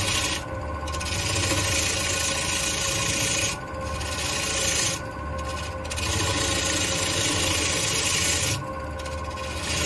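Bowl gouge cutting a tenon on a spinning black walnut blank on a wood lathe: three long scraping passes, the second one short, with the lathe's steady motor hum underneath and between the passes.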